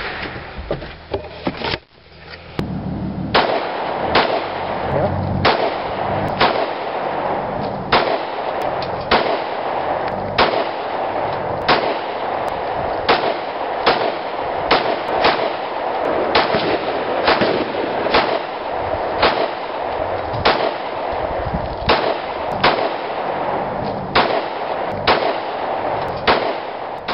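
Gunfire: a long string of about thirty shots, roughly one to two a second, starting about two seconds in, fired at a Fram oil filter used as a target.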